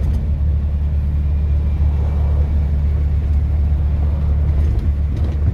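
Steady low rumble of a moving vehicle's engine and tyres, heard from inside the cab.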